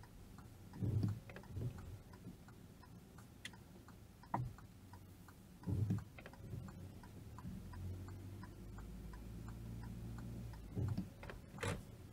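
A car's turn indicator ticking steadily inside the cabin, with a few dull low thumps from the windscreen wipers as they sweep snow off the glass. A low steady hum joins for a few seconds near the end.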